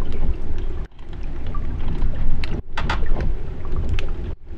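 Harbour water heard underwater through an Ambient ASF-2 MK2 hydrophone: a dense low rumble of moving water with scattered clicks and crackles. It cuts out briefly three times.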